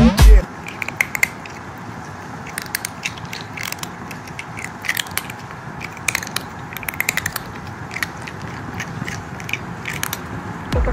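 A cat chewing and crunching food: quick, irregular clicks in small clusters over a steady low hiss.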